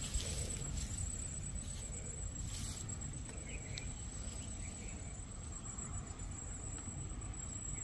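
Steady high-pitched insect chirring, over a low rumble.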